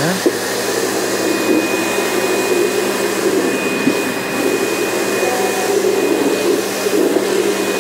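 Kärcher K3 Power Control electric pressure washer running while its floor-cleaner attachment sprays water onto ceramic tile: a steady motor hum under the hiss of the spray, at the medium pressure setting the floor cleaner works at.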